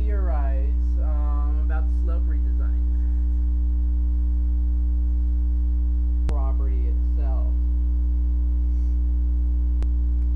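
Loud, steady electrical mains hum, a low buzz with its overtones, running unchanged throughout. Two sharp clicks stand out, one about six seconds in and one near the end.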